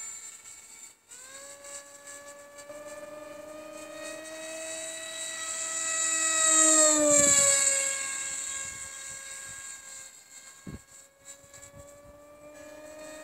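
iPower iBM2208-8 2600KV brushless motor driving a 6x4 pusher propeller on a depron RC plane in flight: a steady high propeller whine. It drops out briefly about a second in and comes back higher, grows to its loudest about seven seconds in, then drops in pitch and fades.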